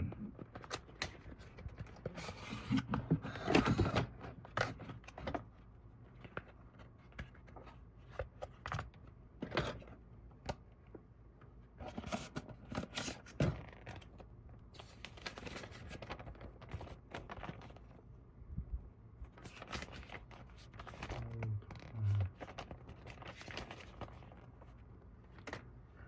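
Phone case packaging being handled and opened by hand: irregular rustling, scraping and tearing of packaging, punctuated by many small clicks and taps.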